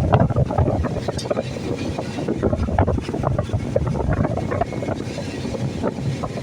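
Excavator's diesel engine running, with frequent irregular knocks and clatter over a steady low rumble.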